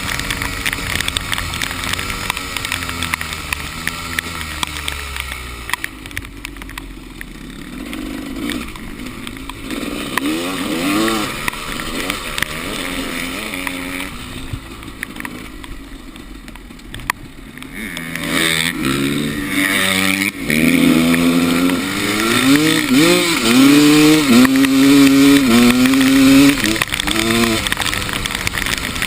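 Enduro motorcycle engine revving up and down repeatedly as the throttle opens and closes, fading for a stretch in the middle and then running loud again with quick rises and drops from about two-thirds of the way through.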